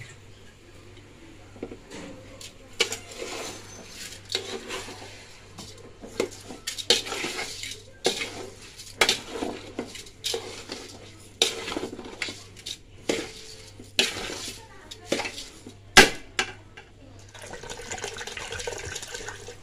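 Metal spatula scraping and stirring rice grains in a large aluminium pot, strokes about once a second. Near the end a loud clank of metal on the pot, then hot water poured into the pot with a steady rush.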